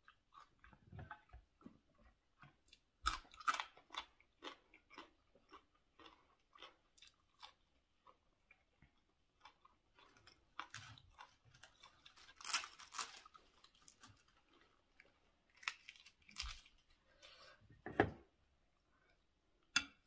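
A person chewing food close to the microphone: irregular crunches and wet mouth clicks, with louder crunches around three to four seconds in, about twelve seconds in and near eighteen seconds. The food is a spicy Thai raw seafood salad of salmon, shrimp and squid eaten with fresh vegetables.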